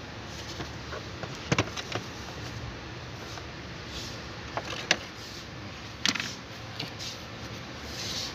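A handful of sharp plastic clicks and taps as hands work the glove-box opening and its retaining tabs in a 2021 Toyota HiAce dashboard, over a steady background hum.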